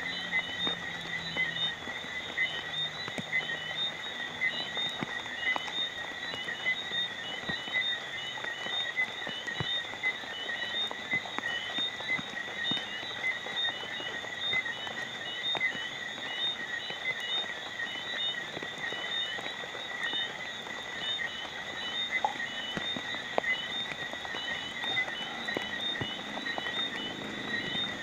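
A night chorus of frogs calling without a break in high, rapidly pulsing notes, with scattered raindrops ticking.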